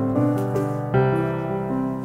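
Background piano music: held notes and chords, with a new chord struck about halfway through.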